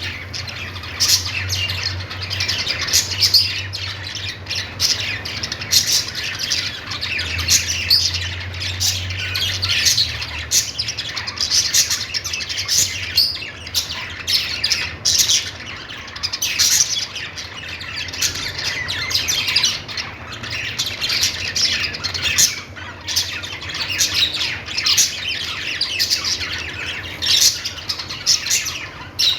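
A group of budgerigars chattering continuously, a dense mix of quick chirps, warbles and short squawks.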